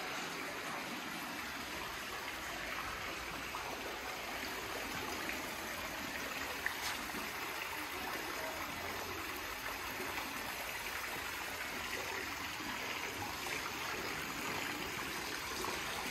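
Steady rush and trickle of running water in a backyard swimming pool and spa, with one brief click about seven seconds in.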